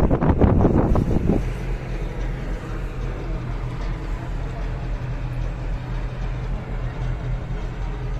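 Wind buffeting the microphone, then after about a second and a half a steady, low engine hum.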